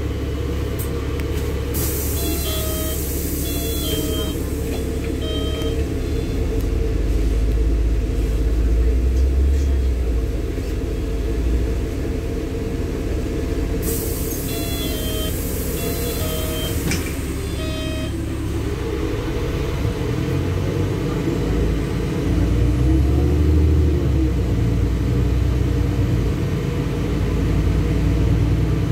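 Interior of a LiAZ-6213.65 articulated city bus under way: a steady low rumble from the engine and the road. Twice, a hiss of about three seconds sounds, with short repeated beeps at about two a second.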